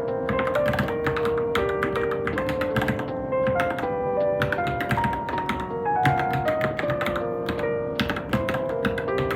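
Keystrokes on a Varmilo Minilo mechanical keyboard, an uneven run of clicks from typing practice, over background music with a melody of held notes.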